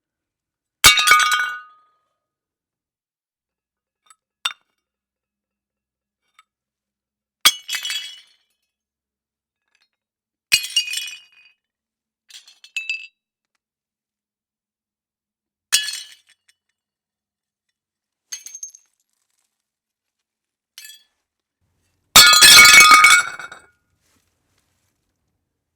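Ceramic plates smashing one after another: five sharp crashes, each with a short jangle of falling shards, and small clinks of pieces in between, all separated by silence. The last crash near the end is the loudest and longest.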